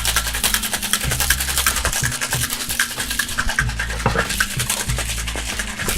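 Cocktail shaker being shaken hard, its contents rattling in a fast, even rhythm throughout.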